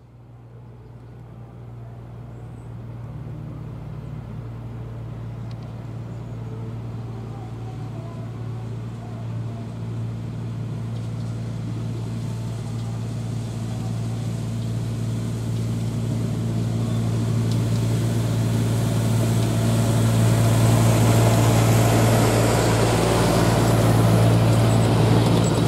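Diesel-hydraulic miniature railway locomotive approaching with its passenger train: a steady low engine drone that grows louder throughout, joined in the second half by rising wheel-on-rail noise as the coaches draw close.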